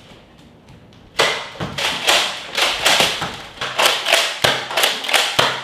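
A Nerf Modulus Tri-Strike blaster being slam-fired: after about a second, a rapid run of sharp plastic clacks and dart shots, about three a second.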